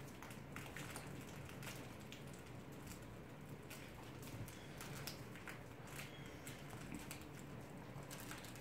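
Faint, scattered light ticks and patters of small puppies' paws and claws moving about on puppy pads and floor, over a low steady hum.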